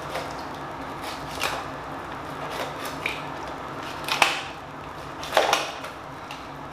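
Scattered knocks and clinks of kitchen utensils and dishes over a steady background hum, the loudest a little past four seconds in and a double knock around five and a half seconds in.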